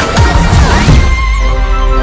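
Electronic theme music with a driving drum beat and sweeping effects, settling onto held chords about a second and a half in.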